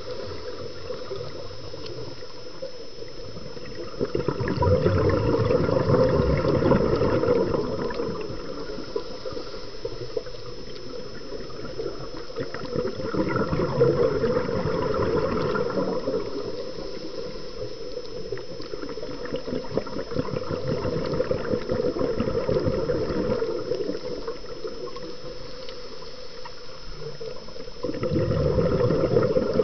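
Underwater water noise with a bubbling, gurgling quality, swelling louder in several surges a few seconds long, about every six to eight seconds.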